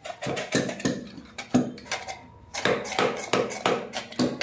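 A quick, irregular run of knocks and clatter, roughly three or four a second.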